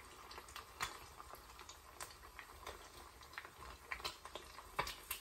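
Eggs frying in bacon fat on low heat: a faint sizzle with scattered, irregular sharp pops and crackles of spitting fat.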